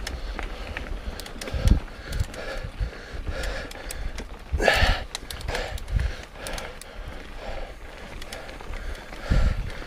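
Mountain bike riding over a trail: the bike clicks and rattles, with several low thumps from bumps or wind buffeting the action camera's microphone and a louder rush about halfway through.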